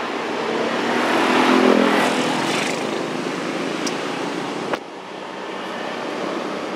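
A motor vehicle passing by, its engine noise swelling to a peak about a second and a half in and then fading away. A single sharp click comes near the five-second mark.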